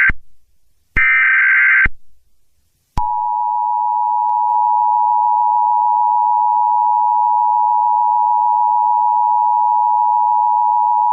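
Emergency broadcast alert: two one-second bursts of warbling data tones, then, about three seconds in, the steady two-tone attention signal, held unchanged for about eight seconds.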